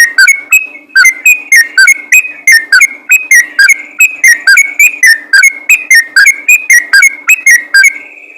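Sooty-headed bulbul singing a rapid, chattering run of short whistled notes, about five a second. It ends on a held note.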